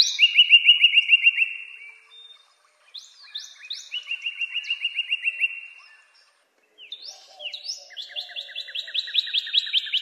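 Northern cardinal singing: three phrases, each made of a few loud down-slurred whistles followed by a fast run of short repeated notes, about eight a second. The first phrase is already under way at the start and ends about two seconds in; the last is still going at the end.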